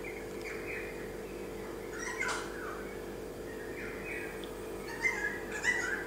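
Pied currawong calling: a string of short calls every second or two, the loudest cluster near the end.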